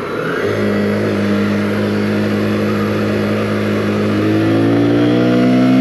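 Keeway TXM125 motorcycle's single-cylinder 125 cc engine pulling at a steady note through a bend, then rising in pitch and getting a little louder as the throttle opens over the last couple of seconds.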